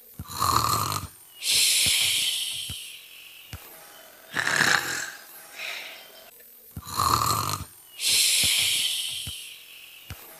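Exaggerated imitation snoring: a short rasping snore drawn in, then a long hissing breath out, then a shorter breathy sound. The cycle comes twice, about seven seconds apart.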